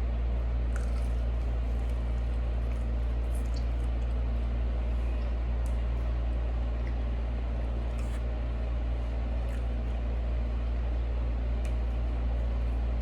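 Steady low hum, with a few faint, brief clicks and rustles over it.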